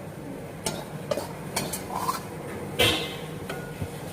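A metal utensil knocking and scraping against a cooking pot, about six clanks, the loudest about three seconds in, over a steady low background hum.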